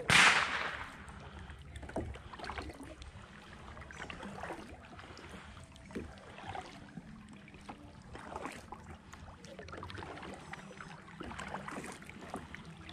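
Kayak paddles dipping and splashing in creek water, stroke after stroke, over a faint trickle. It opens with one loud, sudden noise that dies away in under a second.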